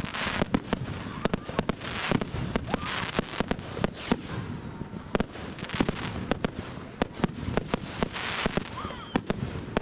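Fireworks going off in many quick, irregular bangs and cracks, with several short stretches of hissing crackle.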